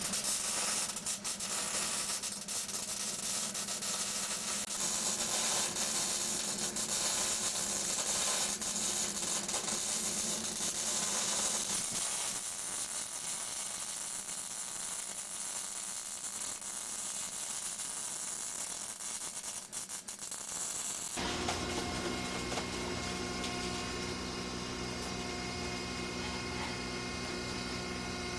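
Hissing, crackling noise of steel on the compactor being cut or welded. About 21 seconds in it switches abruptly to a steady machine hum made of several constant tones.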